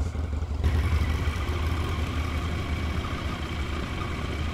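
Husqvarna Norden 901's parallel-twin engine running at low revs as the motorcycle rolls slowly along a dirt track. A faint steady whine joins about half a second in.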